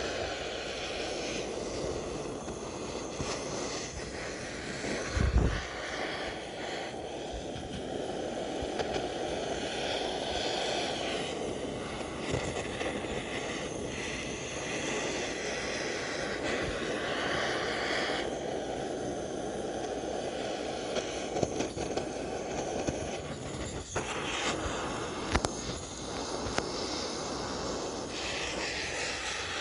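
Compressed-firewood fire burning with a steady rushing noise and scattered sharp pops; a single low thump about five seconds in.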